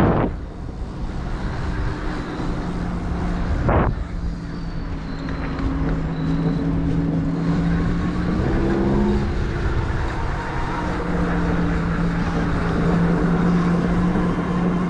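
Huck Cycles Stinger 3000 electric moped's motor whining steadily at a cruise, over a low rumble of wind and road. The tone briefly rises and dips about eight seconds in, and there are two short thumps, one at the start and one about four seconds in.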